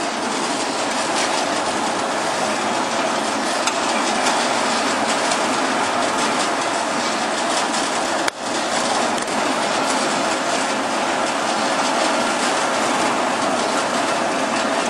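Briquette ball press running, with a steady, dense clatter of pressed ball briquettes tumbling down its steel bar-screen discharge chute. The sound drops out briefly about eight seconds in.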